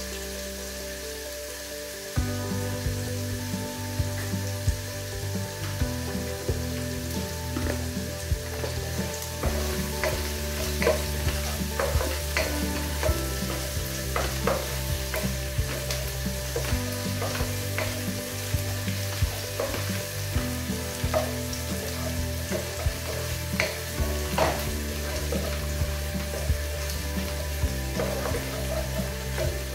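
Chopped onions, garlic and ginger sizzling in hot oil in an enamel pot, louder from about two seconds in. A wooden spoon stirring them gives frequent sharp scrapes and knocks against the pot.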